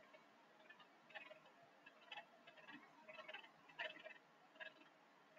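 Near silence, with a few faint, irregular ticks.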